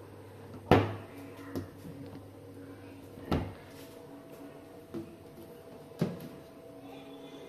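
Overhead kitchen wall-cabinet doors being opened and shut by hand. There are five sharp knocks as the doors close, the loudest less than a second in.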